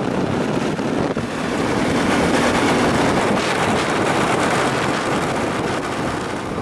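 Wind buffeting the microphone over the steady running of a moving vehicle.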